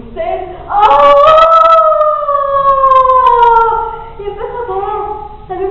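A woman's voice imitating a fox howling: one long, loud howl that starts about a second in and slides slowly down in pitch for about three seconds.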